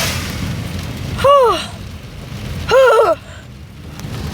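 A person's voice giving two drawn-out exclamations of dismay, about a second and a half apart, each rising then falling in pitch. Under them is a steady low rumble of car road noise.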